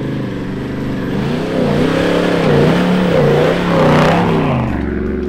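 Toyota LandCruiser 70-series ute's engine revving up and down as it drives through soft sand and passes close by. The revs rise and fall about every half second and grow louder to a peak about four seconds in, then drop back to a low rumble.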